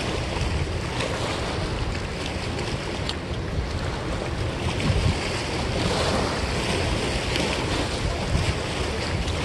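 Steady rush of a fast-flowing river washing against a rocky bank, mixed with wind buffeting the microphone as a low rumble.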